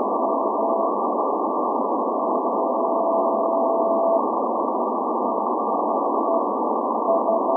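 Shortwave CW reception of SVO, the Athens maritime coast station, keying its Morse-code channel marker on 8424 kHz: a keyed tone at about 700 Hz over heavy band static hiss, with short dots and dashes near the start, one long steady tone of about two seconds in the middle, and a few short dits near the end. The hiss is narrowed to a thin, muffled band by the receiver's CW filter.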